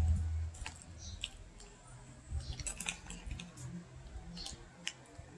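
Metal spoon stirring shaved-ice halo-halo in a plastic cup: irregular clicks, scrapes and crunches of spoon against ice and the cup's side. A low rumble fades out in the first half second.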